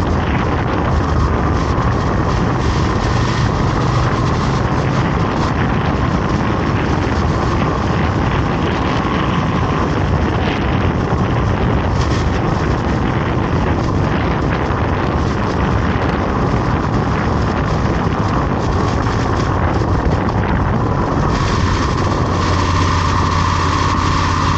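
A vehicle on the move: its engine runs steadily under a loud rush of wind on the microphone. The engine note grows stronger near the end.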